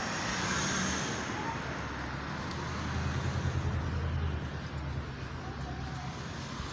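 Busy city street traffic: cars running past, with a low engine rumble that swells about three seconds in and then eases.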